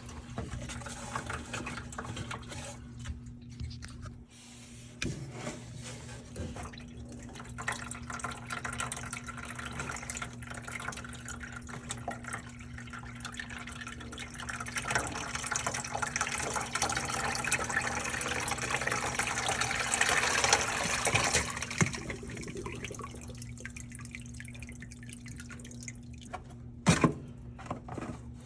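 Water dripping and trickling in a washing machine that won't drain, over a steady low hum. The water grows louder in the middle and then eases off, with scattered clicks and one sharp knock near the end.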